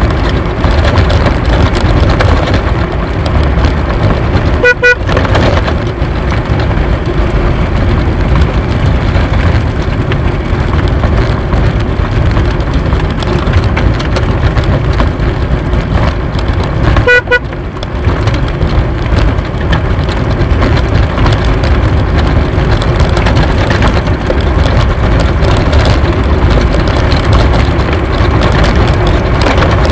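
Unpowered soapbox cart rolling fast down a lane: a steady loud rumble of its wheels on the road surface and wind buffeting the onboard camera. Two short tooting tones sound, about five and about seventeen seconds in.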